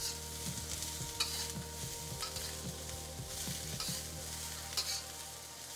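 Bean sprouts sizzling in a hot oiled wok on high heat while a spatula stirs and turns them, with irregular scrapes and light clicks of the spatula against the wok.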